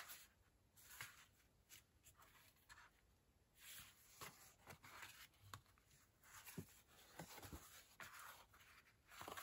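Near silence with faint, scattered rustles and light ticks of folded paper squares being turned over and slid about on a wooden tabletop.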